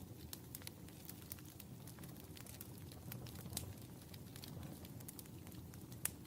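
Wood fire burning in a fireplace, crackling: irregular sharp pops and snaps over a soft low rumble of the flames, with one louder pop near the end.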